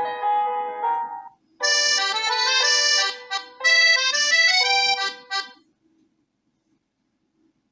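Preset ringtones of a Huawei T3 8 tablet. One melody ends about a second in, then another melody of quick stepping notes plays for about four seconds and stops.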